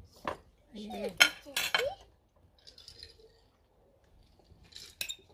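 Metal knife and fork clinking and scraping against plates as meat is cut at the table, with sharp clinks about a second in and again near the end.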